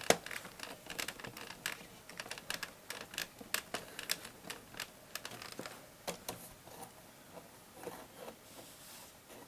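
Faint, irregular light clicks and ticks of a screwdriver driving a screw into a VCR's chassis.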